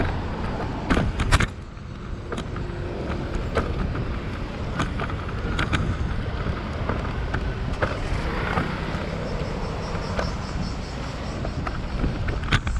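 Road noise while cycling along a road with traffic: a steady low rumble of passing vehicles and wind on the microphone, with sharp clicks and knocks scattered through it, the loudest pair about a second in.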